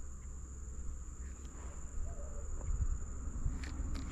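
Steady high-pitched insect drone, with a low rumble underneath and a few faint clicks.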